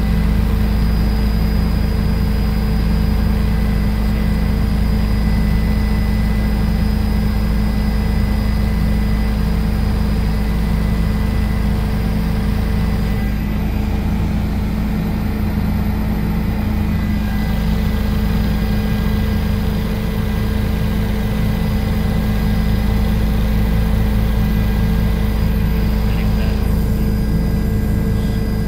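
Helicopter engine and rotor noise heard from inside the cabin: a loud, steady drone with a few thin steady whines above it, unchanging throughout.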